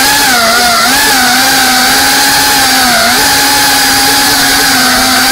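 FPV quadcopter's motors and propellers whining loudly, recorded on the drone itself. The buzzing pitch holds fairly steady, dipping and recovering slightly a few times as the throttle changes.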